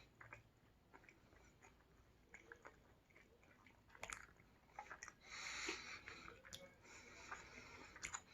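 A person chewing sushi close to the microphone: faint wet mouth clicks and smacks, with a sharper click about halfway and louder hissy mouth-and-breath noise about two-thirds of the way through.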